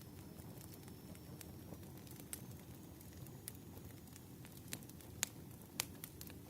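Wood fire crackling softly, with scattered sharp pops, the two loudest about five and six seconds in.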